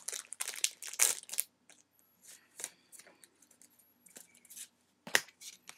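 Foil wrapper of a Pokémon trading-card booster pack crinkling and tearing as it is opened, with irregular crackles and a couple of sharper snaps near the end.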